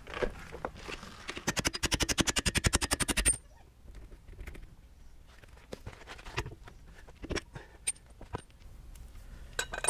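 Rapid run of sharp metallic clicks, about fourteen a second for about two seconds, from a tool working the leaf spring hanger bolt out of a travel trailer's axle mount, followed by scattered light metal knocks and ticks.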